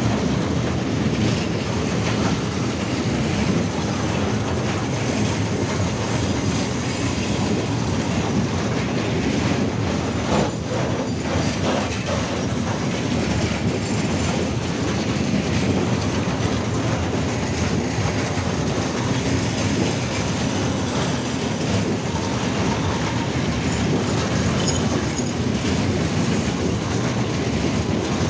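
Freight train of open-top gondola wagons rolling past close by: a steady, unbroken rumble of steel wheels on the rails with the clatter of the wagons.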